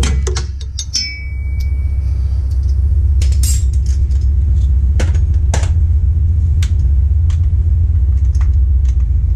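A steady low rumble throughout, with scattered sharp metallic clicks from a ratchet wrench working a rear shock bolt, and a short ringing metal clink about a second in.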